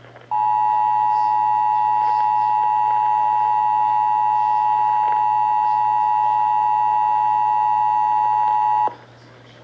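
Emergency Alert System two-tone attention signal, a steady dual-pitch alert tone sounding for about eight and a half seconds and cutting off sharply near the end, marking the start of a relayed severe thunderstorm warning.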